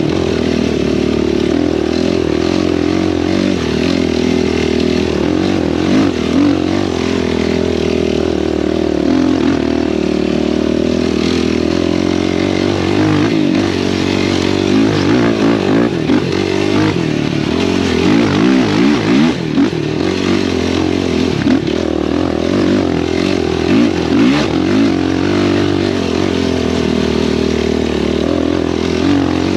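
Sport ATV engine running under load while riding, holding a steady note for the first part. Through the middle stretch the revs rise and fall repeatedly with the throttle.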